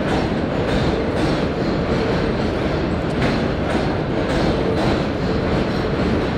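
A 7 train subway train running on the elevated structure overhead: a steady loud rumble with the wheels clacking over rail joints about twice a second.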